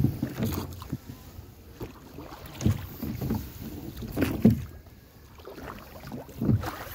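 A rowboat being rowed: the oars dip and pull through the lake water about every two seconds, with wind buffeting the microphone. There is a short knock at the very start.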